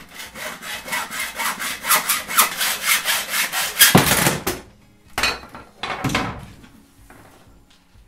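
Hacksaw cutting through metal conduit in quick, rhythmic back-and-forth strokes, about three or four a second, for roughly four and a half seconds. Two more short scraping strokes follow, around five and six seconds in.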